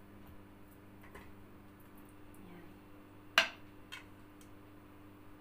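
A spoon clinking against a bowl: one sharp clink a little over three seconds in and a lighter one about half a second later, over a faint steady hum.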